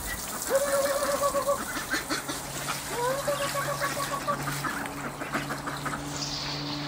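White domestic ducks quacking, with two drawn-out calls about a second long, the first about half a second in and the second about three seconds in.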